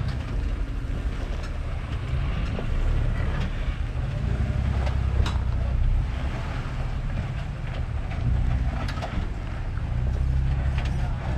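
Off-road 4x4 engine running at low revs while crawling over rock, its low rumble swelling and easing, with a few sharp knocks and clicks from the rocks and the truck.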